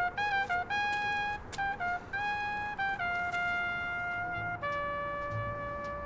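Jazz score music: a solo trumpet plays a quick phrase of short notes, then two long held notes. Low bass notes come in under the last one.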